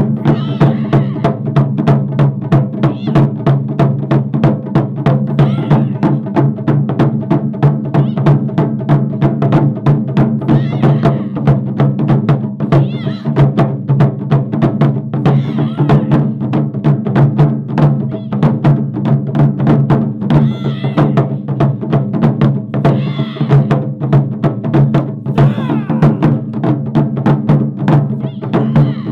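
Japanese taiko drum ensemble playing fast, continuous strikes with a deep, ringing drum resonance underneath.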